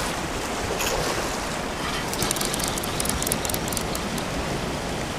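Ocean surf washing and breaking against a rocky lava shoreline, a steady rushing wash, with a run of quick faint high ticks in the middle.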